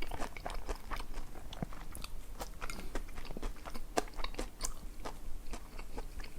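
Close-up eating sounds: chewing with many small irregular clicks and smacks of the mouth, several a second.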